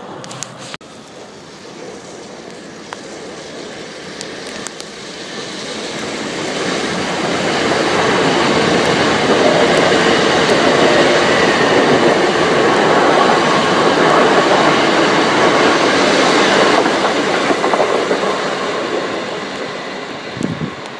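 c2c Class 357 Electrostar electric train passing through on the line beside the platform without stopping. It grows louder over several seconds, is loudest in the middle, then fades away.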